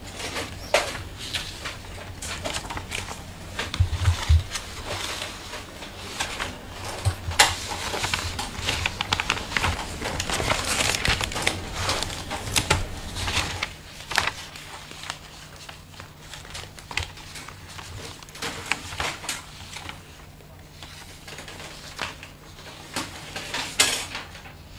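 Room ambience: scattered clicks, knocks and rustling, with a few louder low thumps about four seconds in and a steady low hum that comes in about halfway through.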